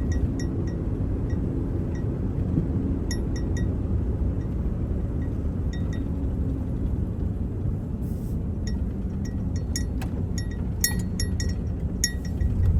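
Steady low road and engine rumble inside a moving vehicle's cabin, with frequent light metallic clinks from something loose, most frequent near the end.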